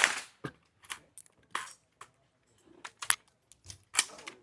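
A series of sharp, irregular metallic clicks and clinks, about seven in four seconds; the first, at the very start, and one about three seconds in are the loudest.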